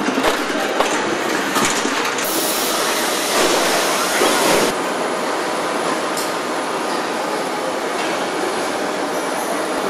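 Car body assembly line machinery: a steady mechanical din with a few clanks in the first two seconds, and a loud hiss from about two seconds in that cuts off suddenly about halfway through.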